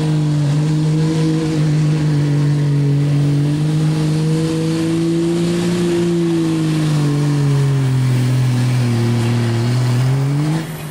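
Dodge Ram diesel pickup engine pulling hard at full throttle against a weight-transfer sled. Its note holds steady, then sinks in pitch over the last few seconds as the sled's load bogs it down, rises briefly, and cuts off sharply near the end.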